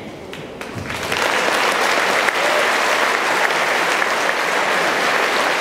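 Audience applauding in a large hall. The clapping swells about a second in and then holds steady.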